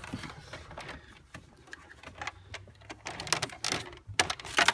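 Plastic clicks, rattles and rustling from a wiring harness and its connectors being handled and plugged in while the Parrot MKi9100 hands-free kit's head unit is connected. Scattered short clicks that come thicker and louder in the last couple of seconds.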